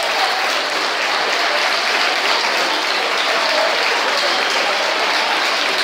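A crowd applauding, a dense, steady clatter of many hands clapping.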